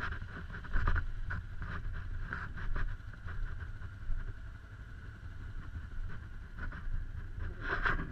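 Off-road vehicle engines idling, a low steady rumble with a few short bumps.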